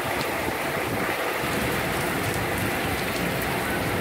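Heavy rain falling in a storm, a steady, even hiss with no breaks.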